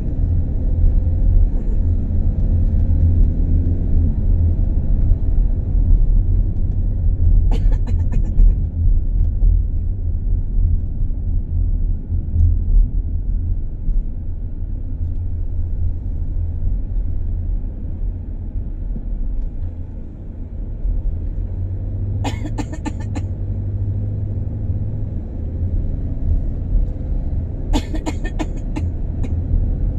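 Steady low rumble of a car's engine and tyres heard inside the cabin while driving. Short bursts of rapid clicking or rattling come about eight seconds in and twice near the end.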